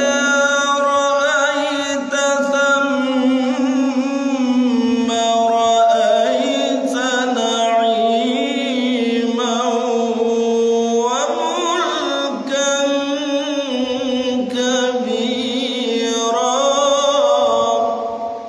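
Male qari reciting the Quran in a melodic, ornamented style: one long sustained phrase, the voice wavering and gliding in pitch, fading out near the end.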